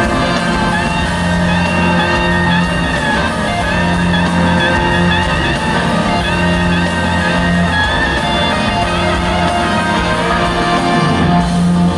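A live rock band playing in a large hall: electric guitar and bass with held, slightly wavering melody lines over a steady low bass note.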